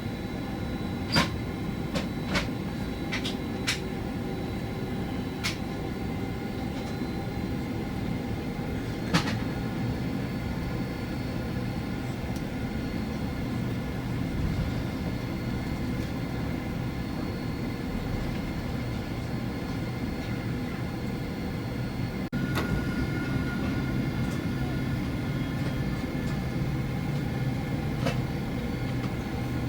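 Cabin noise of a Boeing 767-400ER on the ground: a steady engine hum and airframe rumble, with several sharp clicks or rattles in the first ten seconds. About two-thirds of the way through the noise steps up a little louder and a new steady whine joins it.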